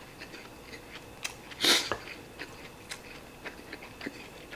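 A man chewing a mouthful of fried rice, with small wet mouth clicks and smacks and a short rush of breath just under two seconds in.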